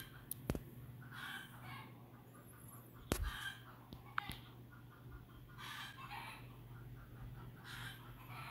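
Faint chicken calls repeating every second or two, over a steady low hum, with a couple of sharp knocks as the phone is handled.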